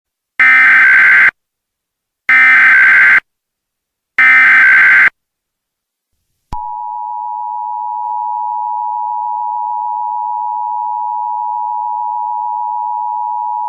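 Emergency Alert System tones opening a tornado warning. First come three short, evenly spaced bursts of SAME header data tones, each about a second long, which encode the alert. Then, about six seconds in, the steady two-tone attention signal (853 and 960 Hz) starts and holds.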